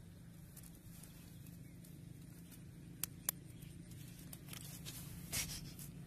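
Faint handling noise from hands working in dry straw and clay around a buried pot trap: two sharp clicks about three seconds in and a brief rustle after five seconds, over a steady low hum.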